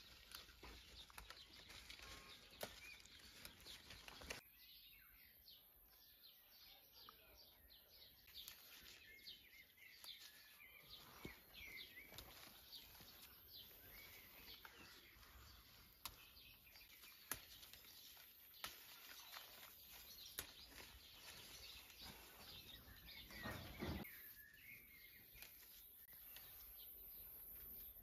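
Quiet garden ambience with faint bird chirps, soft rustles and scattered small clicks of grapevine shoots and leaves being handled, and a couple of louder knocks, one of them about three-quarters of the way through.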